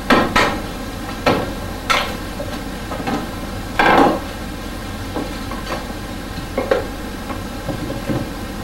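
Dough being floured and handled on a wooden board: several short knocks and thuds, the longest about four seconds in, over a steady background hum.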